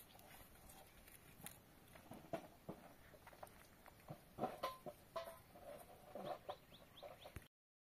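Faint short animal calls among scattered knocks and clicks, with a few small chirps near the end; the sound drops out abruptly for a moment just before the end.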